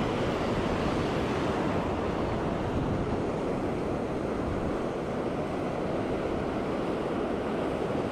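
Surf washing in and out on a sandy beach as a steady hiss and rush of breaking waves, with wind on the microphone.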